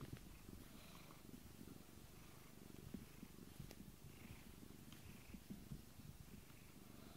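Domestic cat purring faintly and steadily while its head is stroked.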